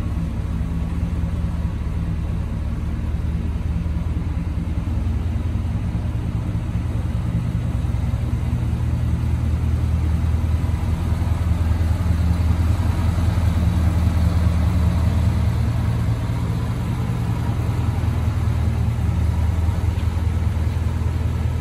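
1983 Chevy Silverado K20 pickup's engine idling steadily, a low even rumble that gets a little louder about halfway through.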